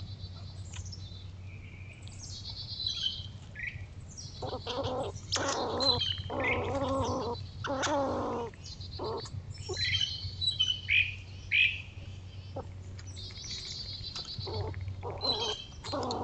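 Wild birds chirping and calling, with a run of louder, lower calls in the middle, over a steady low hum.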